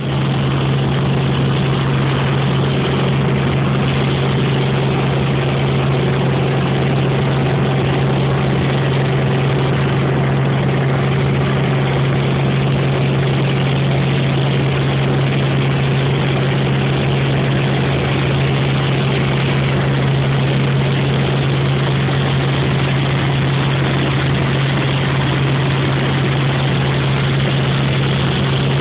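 Helicopter in flight: a loud, steady drone of engine and rotors with a constant low hum and no change in pitch.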